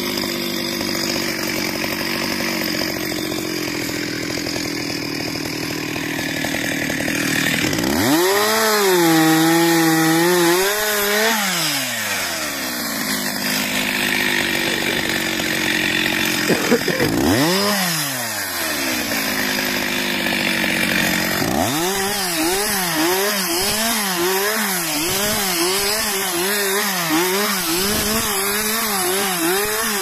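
Stihl MS 361 two-stroke chainsaw running. It starts steady, then is revved up and back down twice, at about a quarter and again past half way. Through the last third its pitch rises and falls over and over, a little more than once a second.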